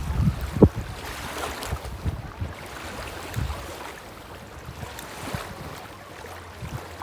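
Waves washing on a beach, with wind buffeting the microphone in low gusts and one sharp thump about half a second in.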